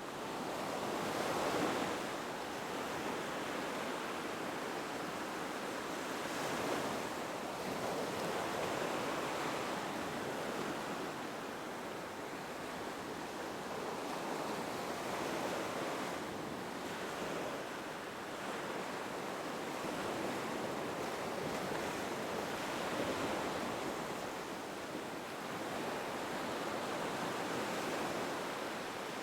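Ocean waves breaking on a beach: a continuous wash of surf that swells and eases every few seconds.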